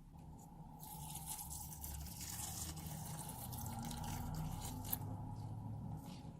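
Slime being squished and kneaded by hand, with dense wet crackles and small pops. It is loudest from about a second in until near the end.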